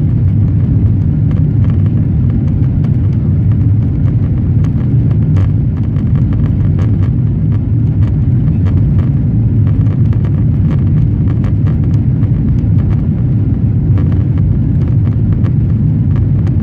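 Steady low rumble of a Boeing 777-300's engines and rushing air, heard from inside the passenger cabin during the climb after takeoff.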